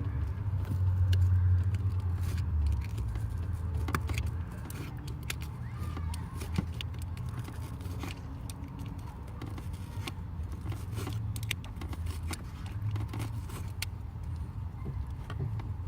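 Scattered small clicks and scraping over a low steady rumble, as a hobby knife cuts through the car's firewall insulation by hand.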